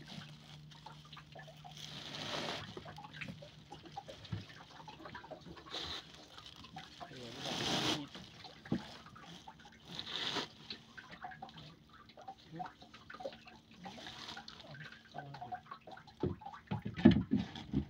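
Wet nylon gill net being hauled hand over hand into a wooden boat, water dripping and splashing off the mesh in repeated swishes. A sharp knock sounds near the end.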